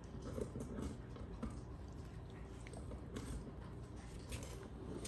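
Husky gnawing on a hard white chew treat: faint, irregular clicks and scrapes of teeth on the chew.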